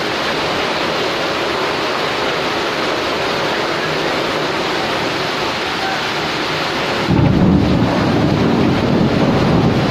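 Steady rushing hiss of steam from an open dandang rice steamer boiling hard over a wood fire, with a louder low rumble coming in about seven seconds in.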